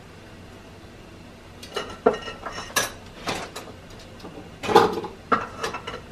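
Kitchen dishes and utensils clinking and clattering: a string of sharp clinks with a short ringing tone, starting about two seconds in and coming in two clusters, over a faint steady hiss.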